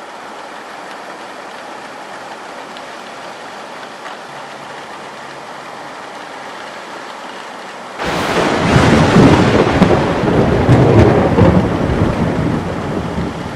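Steady rain, then about eight seconds in a sudden loud clap of thunder that rolls on and rumbles.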